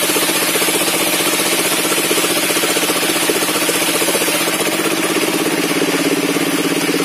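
Engine powering a sawmill's circular saw table, running steadily with a fast even pulse.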